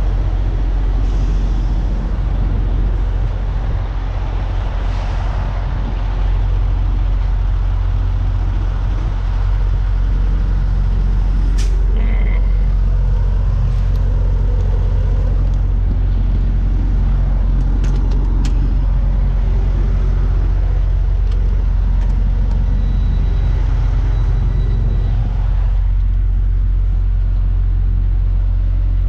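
Diesel semi-truck engine idling with a steady deep drone, with a few sharp clicks about halfway through.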